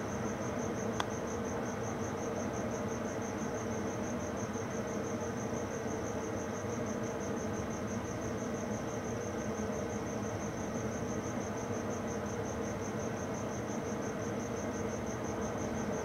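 Crickets chirping in an even, rapid high-pitched pulse that never lets up, over a steady low hum.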